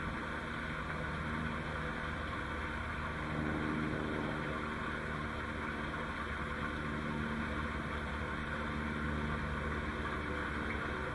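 A steady mechanical drone, like an engine running at a distance, with a hiss above it. It grows a little louder about three seconds in.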